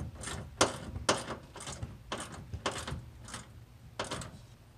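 Hand ratchet being worked back and forth to tighten a radiator mounting bolt: a run of short clicking strokes, about two a second, spacing out near the end.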